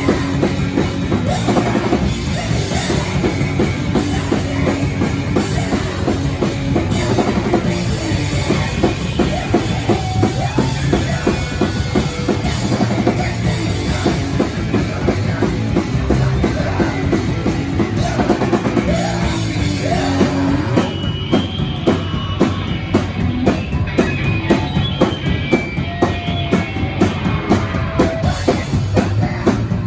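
Hardcore punk band playing live: distorted electric guitar, bass and drums at full volume, with the drum hits turning sharper and more clear-cut in the last third.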